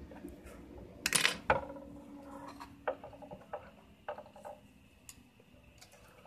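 Light clicks and clinks of small hand tools being handled and set down on a workbench: metal tweezers laid down and a soldering iron picked up. The loudest clatter comes between about one and one and a half seconds in, followed by a few fainter ticks.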